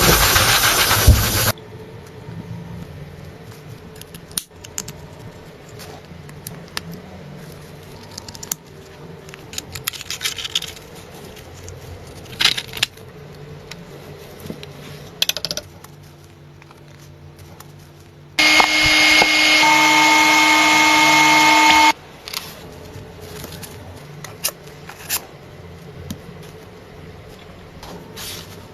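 Metal tools clinking and tapping during car repair work. A loud, steady power tool runs for about three and a half seconds past the middle.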